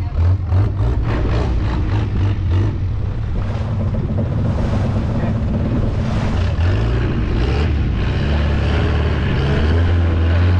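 Longtail boat's engine running steadily under way, with wind buffeting the microphone in the first few seconds and the rush of water and air around the open boat. The engine note shifts up slightly about seven seconds in.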